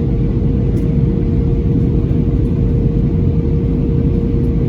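Cabin noise of a Boeing 737-900ER on approach: a steady low rumble of engines and airflow, with a steady mid-pitched hum that stops near the end.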